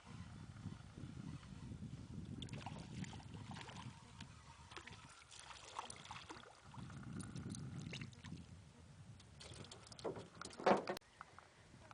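A small boat being rowed: oar strokes with water washing and sloshing around the hull, and a louder brief burst of splash or knock near the end.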